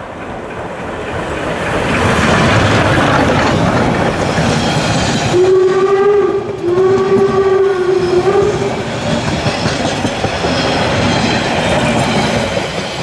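Harz narrow-gauge steam train passing close by: the rumble grows over the first two seconds, then the carriages go by with a steady clatter of wheels over the rail joints. About halfway through, a whistle sounds twice, the second blast longer.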